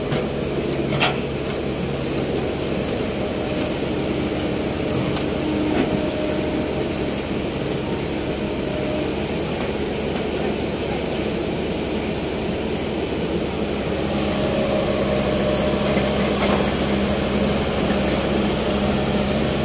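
Sumitomo S265 hydraulic excavator's diesel engine running steadily as it digs and lifts a bucket of soil out of a trench, with a sharp knock about a second in. The engine grows a little louder about two-thirds of the way through.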